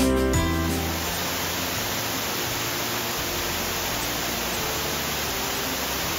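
Guitar music ends within the first second, leaving the steady, even rush of a tall cascading waterfall pouring over rock ledges.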